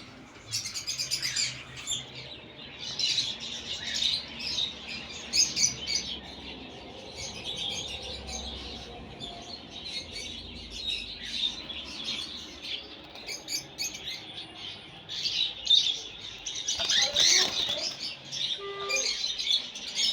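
Many small cage birds chirping and tweeting together in a constant, overlapping chatter of short high calls.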